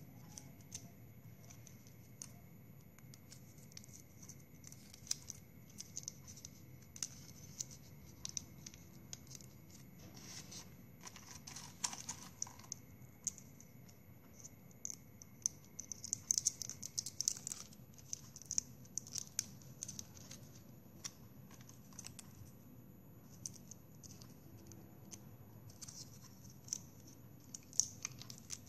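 Plastic drinking straws being handled: scattered short clicks, scrapes and crinkles as cut straw pieces are pushed onto a straw stem and picked out of a plastic box, busiest a little past the middle.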